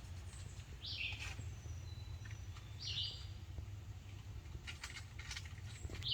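A bird calling outdoors: short, high chirping phrases repeated about every two seconds, over a steady low rumble.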